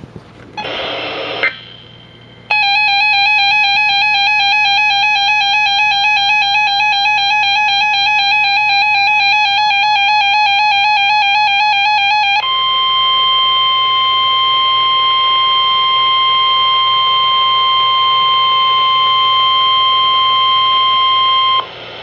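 Emergency Alert System tones announcing a severe thunderstorm warning over NOAA Weather Radio: a brief buzzy data burst about half a second in, then the wavering two-tone EAS attention signal for about ten seconds. It switches abruptly to the single steady NOAA Weather Radio warning alarm tone, which holds for about nine seconds and cuts off shortly before the end.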